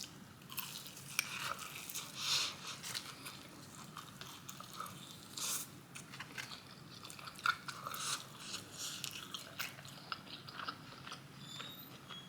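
Close-up mouth sounds of someone biting and chewing crispy fried chicken tenders, with irregular crunches and wet chewing.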